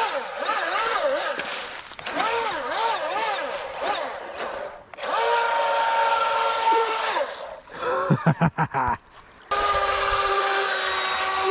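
Atomik Barbwire RC boat's electric motor whining, its pitch swooping up and down with the throttle, then holding steady at speed, with the hiss of water spray from the hull. It cuts out briefly about five seconds in, stutters in short bursts around eight seconds, then runs steady again.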